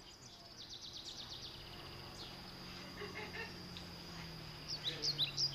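Birds chirping: a quick run of short high notes early on, then, about a second before the end, a series of sharp downward-sweeping whistles, about three a second, over a faint steady high tone.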